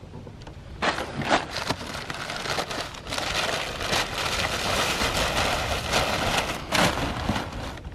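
Brown kraft packing paper rustling and crinkling as it is pulled and bunched out of a cardboard shipping box. A few sharp crackles about a second in, then a continuous, denser rustle from about three seconds in until shortly before the end.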